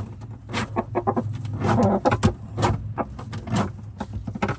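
Rooster in a nest box making short, irregular clucking calls over a steady low hum. The owner takes the calls for the rooster making a nest for the hens.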